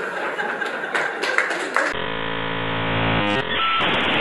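Faint hall noise with a few clicks, then an abrupt cut about two seconds in to an electronic buzzing drone. A short beep follows, then steady static hiss: a glitch-style transition sound effect.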